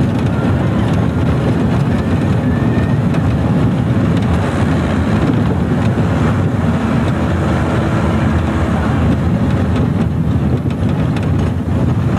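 Amusement-park ride train rolling along its track: a steady low rumble from the wheels, with wind buffeting the microphone.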